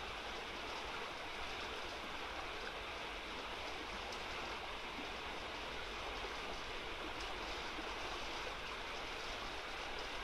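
Small river rushing steadily over a shallow, broken riffle.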